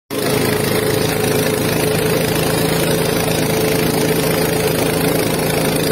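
A diesel tractor engine running steadily as the tractor drives through floodwater, its wheels churning up splashing water.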